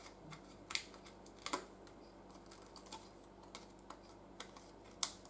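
Small die-cut pieces of thin translucent paper being peeled from their sheet by hand: faint, irregular paper clicks and crackles, with a few sharper snaps, about a second in, a second and a half in, and near the end.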